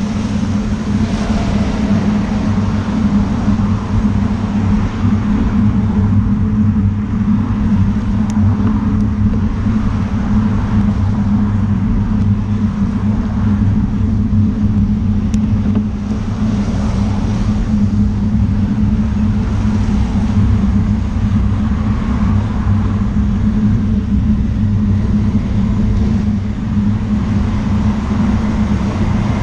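Steady low rumble of wind and road vibration on a bicycle-mounted camera riding in the rain, with swells of tyre hiss as cars pass on the wet road every few seconds.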